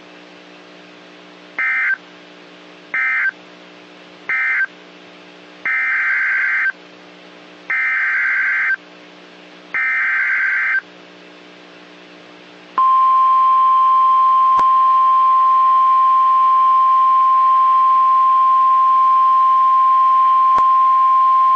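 NOAA Weather Radio emergency alert tones: three short buzzy SAME data bursts that end the previous warning, then three longer SAME header bursts announcing the next warning. Just past the middle, the steady single-pitch weather radio warning alarm tone starts and holds for about nine seconds, over a faint radio hum.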